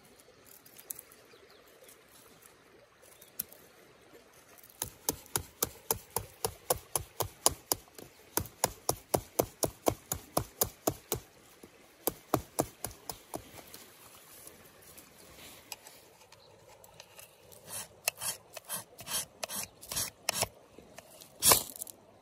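Knife blade shaving curls from a dry stick to make a feather stick, a quick, even series of scraping strokes about three a second. After a pause come a few slower strokes, then one louder, longer scrape near the end.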